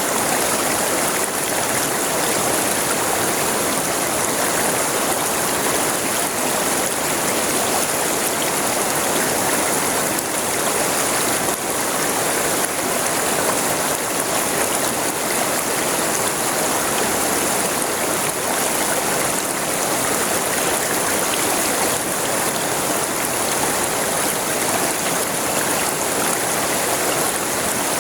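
A river flowing steadily, its water rushing and splashing in an even, unbroken wash.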